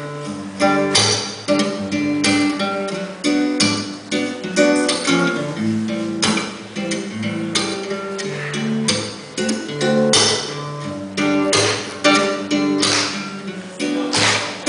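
Guitar strumming a steady pattern of chords: the instrumental introduction to a song, before the vocals come in.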